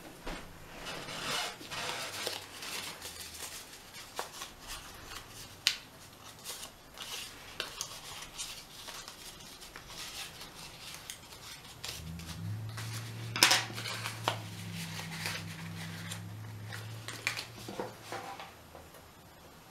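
Patterned paper being handled and curled around a pencil: soft rustling and crinkling with scattered light clicks and taps on the tabletop, one sharper click about two-thirds of the way through. A low steady hum comes in about twelve seconds in and fades near the end.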